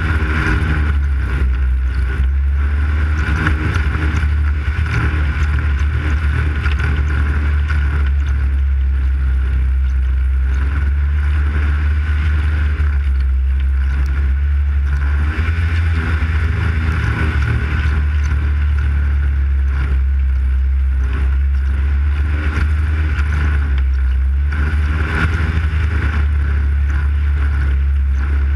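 Arctic Cat snowmobile engine running under way on the trail, a steady low drone whose note rises and falls a few times with the throttle.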